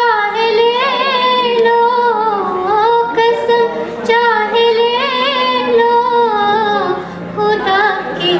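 A woman singing a Hindi film song solo, with long held notes and wavering vibrato.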